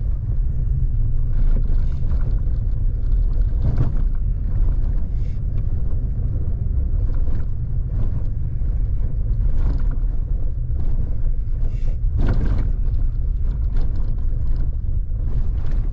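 A vehicle driving on a rough forest road: a steady low engine and road rumble with wind noise, and irregular knocks and rattles as it goes over bumps, the strongest about four and twelve seconds in.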